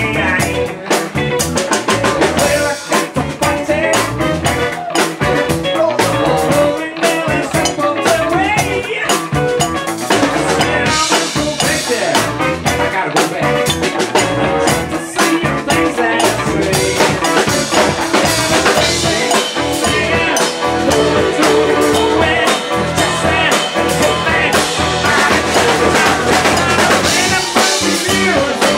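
Live blues-rock band playing without vocals: drum kit with rimshots on the snare and bass drum under electric guitars.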